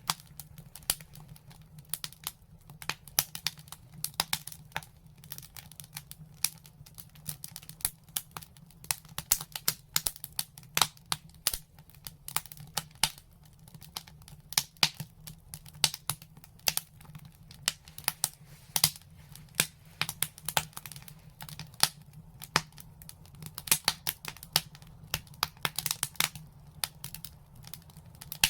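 Fire in a brick fireplace crackling: many irregular sharp pops and snaps over a low steady rumble.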